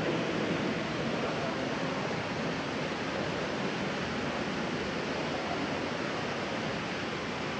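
Steady, even rushing background noise in a large indoor space, with no distinct events.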